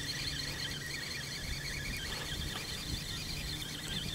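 Spinning reel being wound steadily, a continuous mechanical whirr, as a hooked crucian carp is reeled in on a feeder rod.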